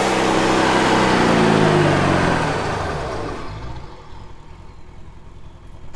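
Car engine running past, its pitch falling steadily as it fades away over about four seconds.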